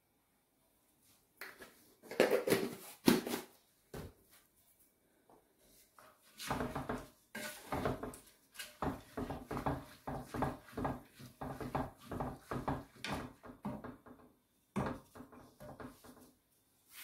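A few knocks and rattles from a plastic spice jar as curry powder is tipped out, then a wooden spoon stirring parboiled rice in a nonstick pot, a rhythmic scraping of about two to three strokes a second that runs until near the end.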